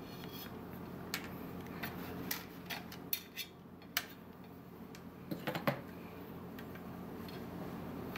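Irregular small clicks and taps of metal and plastic parts being handled as an airsoft electric gun (AEG) is taken apart, over a faint steady hum.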